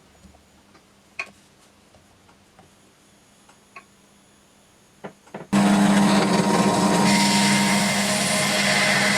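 A few light clicks and knocks of parts being handled, then a power tool switches on abruptly about halfway through and runs steadily with a low hum.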